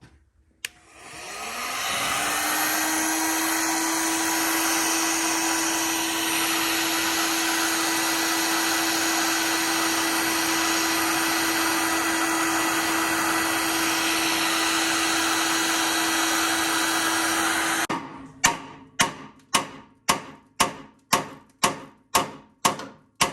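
A handheld electric power tool switched on with a click, its motor spinning up with a short rising whine and then running steadily at one pitch for about sixteen seconds before shutting off. It is followed by a run of sharp metal hammer blows, a little under two a second, on the steering bellcrank pin as it starts to move.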